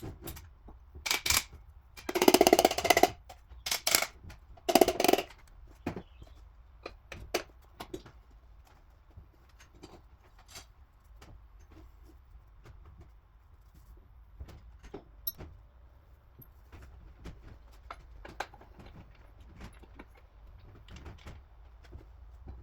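Metal tools and engine parts clinking and knocking as they are handled. There are a few louder rattling clatters in the first five seconds, then scattered light ticks.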